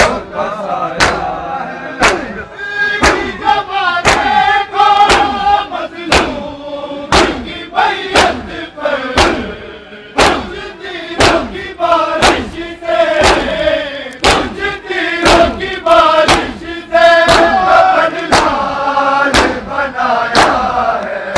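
A crowd of mourners doing matam: many men striking their bare chests in unison with open hands, making sharp, evenly paced slaps. Between and over the slaps, the men chant a nauha (mourning lament) together.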